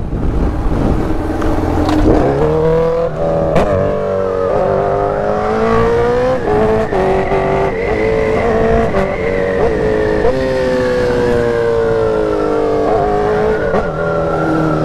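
Remapped sport motorcycle engine pulling hard: its pitch climbs and drops back with several quick upshifts, then holds and sinks slowly as the bike eases off.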